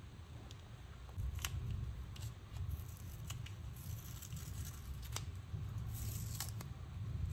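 Close handling of a roll of washi tape: scattered small clicks and crackles, then a stretch of crinkly peeling and rustling from about four seconds in as the tape is unwrapped and pulled from the roll, over a low rumble.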